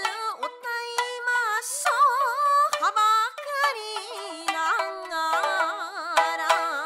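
Japanese folk song (min'yō) sung by a woman in a wavering, heavily ornamented vocal line, accompanied by plucked shamisen that sounds mostly near the start and near the end.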